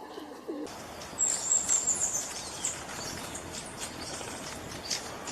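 A pigeon's coo cut off less than a second in, followed by a steady hiss of background noise. Over the hiss, a small bird gives a high, thin trilling call lasting about a second and a half, then a few short high chirps.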